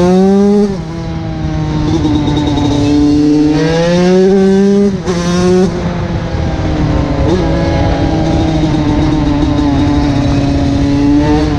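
TM SMR 125 two-stroke supermoto engine under hard acceleration: the pitch climbs and drops sharply at an upshift about a second in, climbs again and drops at a second upshift near six seconds, then holds a fairly steady high pitch while cruising.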